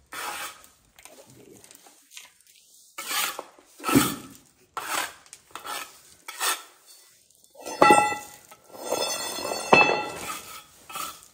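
A series of short scraping strokes of metal on metal, with two sharper clanks in the second half that leave a ringing tone.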